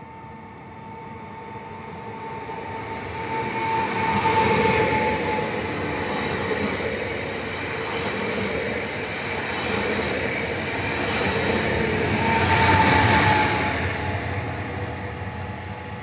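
Koleje Dolnośląskie 48WEc (Pesa Elf 2) electric multiple unit pulling out and running close past: a rumble of wheels on rail with a steady electric whine. Both swell twice, loudest about four seconds in and again near thirteen seconds, and the whine drops slightly in pitch at each peak.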